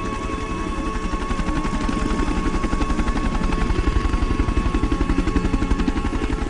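Helicopter rotor chopping steadily at about ten beats a second, growing gradually louder, with a steady high tone running under it.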